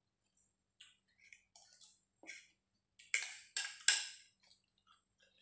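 Close-up eating sounds: chewing and small clicks of a fork and spoon on a stainless steel tray, with three louder noises in quick succession about three seconds in.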